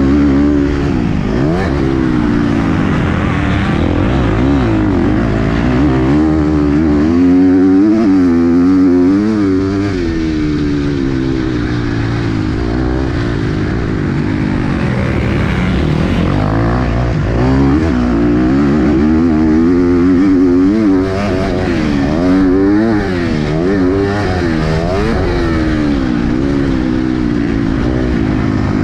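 KTM 250 SX-F's four-stroke single-cylinder motocross engine at race pace, its pitch repeatedly climbing under throttle and dropping off as the rider accelerates, shifts and backs off.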